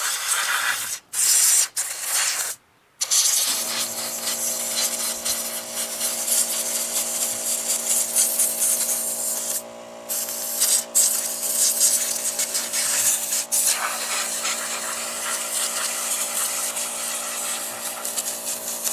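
Compressed-air blowgun hissing in short blasts, then almost without a break, as it blows mouse-nest debris out of the cooling fins of a Briggs & Stratton flathead engine. A steady machine hum starts about three seconds in and runs under the hiss.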